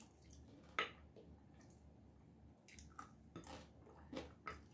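Faint eating sounds of chicken being torn apart by hand and chewed: scattered short wet clicks and smacks, the loudest just under a second in and several more close together near the end.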